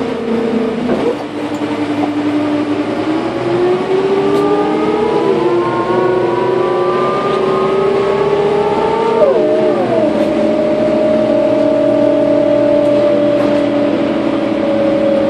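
Karosa B931 city bus pulling away, heard inside the cabin: the ZF automatic gearbox whines in several tones that climb together as the bus speeds up. About nine seconds in the pitch drops sharply at an upshift, and the whine settles into one steady tone that sinks slowly.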